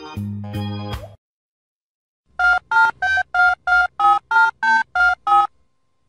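A snatch of electronic keyboard music stops about a second in. After a short pause come ten touch-tone telephone keypad beeps, about three a second, like a phone number being dialled.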